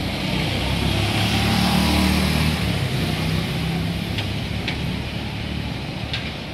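A motor vehicle's engine running close by over steady traffic hiss, loudest about two seconds in and then fading as it passes, with a few light ticks near the end.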